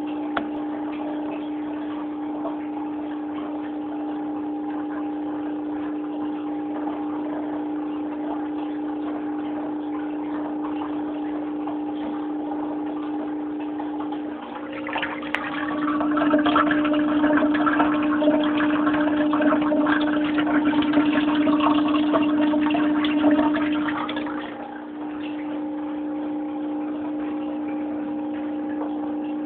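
Steady hum of aquarium equipment: one low tone with a few fainter higher ones. About halfway through, louder water churning and splashing comes in over it for some ten seconds, then stops.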